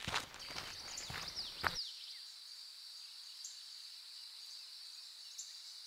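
A few knocks and clicks in the first two seconds, the loudest just before the sound changes. Then a steady, high, continuous insect chorus with small chirps over it.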